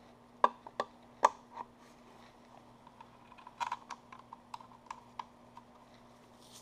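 Irregular light clicks and clinks of parts being handled as an oil pickup tube is fitted onto an aluminum upper oil pan: a few sharp clicks in the first second and a half, then a quicker run of small taps in the middle.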